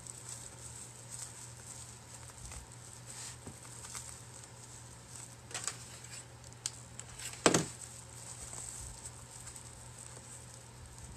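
Faint rustling and crinkling of fabric and stuffed plastic bags as hands squeeze them against a hot-glued wooden stem, with a few light clicks and one sharp knock about seven and a half seconds in, over a steady low hum.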